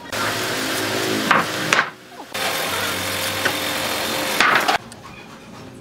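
Heavy hardwood planks being handled: two long stretches of wood scraping over wood as boards are slid across each other, with a few sharp knocks, each stretch stopping abruptly.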